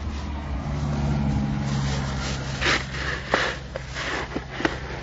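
A motor vehicle's engine running steadily with a low hum, with a handful of sharp knocks and clicks in the second half.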